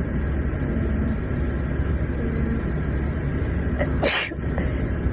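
A person sneezing once, sharply, about four seconds in, set off by a nasal swab for a Covid test, over a steady low rumble.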